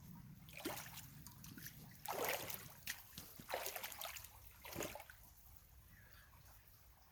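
Water sloshing and splashing in a creek as someone wades, about four separate splashes over the first five seconds, then only faint water.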